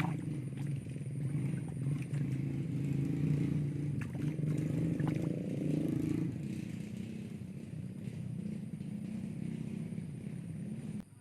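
A small engine running steadily, with scattered clicks over it; the sound drops away abruptly near the end.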